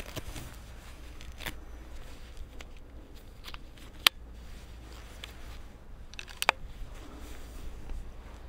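Air Arms S510 Ultimate Sporter PCP air rifle being loaded by hand: a few sharp mechanical clicks as the 10-shot magazine is fitted and the action is worked, the loudest about four seconds in and a quick double click about six and a half seconds in, with light rustling of gloves and clothing between them.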